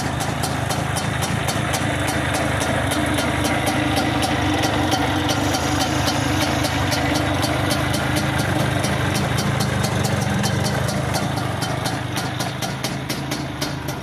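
Modified Vespacar auto-rickshaw's two-stroke engine running steadily at idle. It picks up a little in the middle, then eases off near the end.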